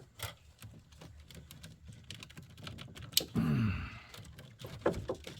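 Small, irregular plastic clicks of nylon cable ties being pulled tight and handled, turning into a quicker run of clicks near the end. A short, falling low sound comes about three and a half seconds in.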